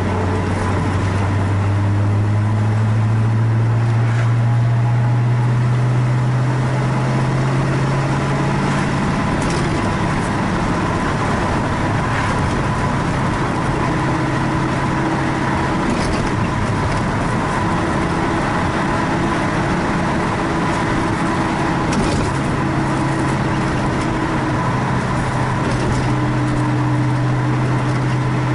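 1967 Ford Fairlane GT's V8 engine running under way with road noise. The engine note climbs steadily for the first several seconds as the car accelerates in gear, then evens out and holds a steady pitch near the end.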